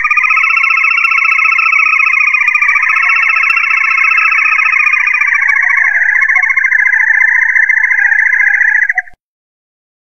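A loud, continuous buzzing trill, rapidly pulsing and steady in pitch with a slight downward drift. It lasts about nine seconds and cuts off abruptly.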